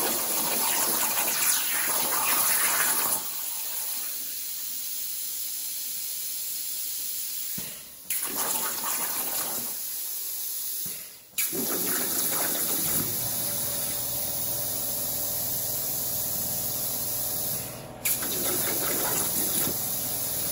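Hypertherm Powermax45 XP plasma torch on a CNC table cutting 16-gauge sheet steel at 45 amps with fine-cut consumables: a loud steady hiss of the arc and its air. The hiss breaks off briefly three times and starts again suddenly each time.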